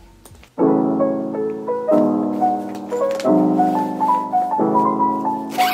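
Gentle background piano music, starting about half a second in, with a new chord about every second and a bit. A brief rustle near the end.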